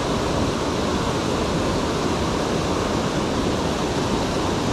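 Steady rush of a rocky mountain stream, water tumbling over boulders in riffles and small cascades.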